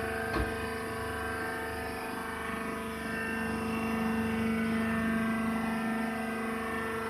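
Hydraulic rice husk baling machine running: a steady motor-and-pump hum with a single knock about half a second in. One tone in the hum grows louder from about two and a half seconds in and eases off again near the end.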